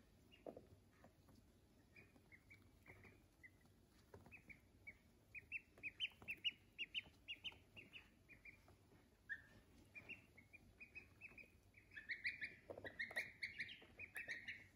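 Duckling peeping: a run of short, high cheeps that come quickly and loudest around the middle and again near the end, with a few soft taps among them.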